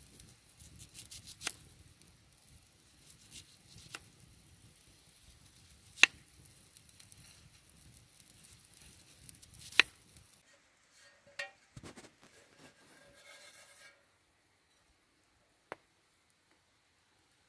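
Knife slicing a raw potato on a wooden cutting board: soft cutting with a few sharp knocks of the blade on the board, the loudest about six and ten seconds in. After that only faint scattered ticks, then near silence.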